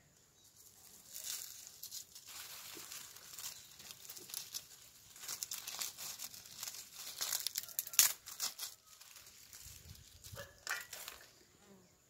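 Dry leaves crackling and rustling as a bee smoker is being lit, the leaves fed into its firebox and catching alight. One sharp snap about eight seconds in.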